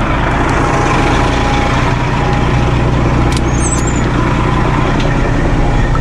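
Heavy air-braked vehicle's engine running steadily as it pulls away, with a steady whine over the low engine hum.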